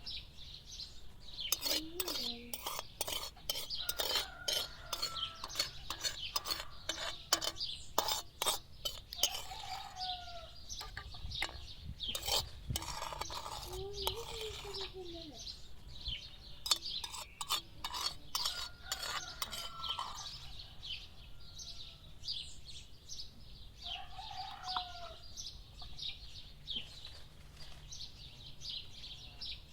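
Metal utensil clinking and scraping against a cooking pot, in quick runs that thin out after about twenty seconds. Small birds chirp throughout, and chickens call a few times.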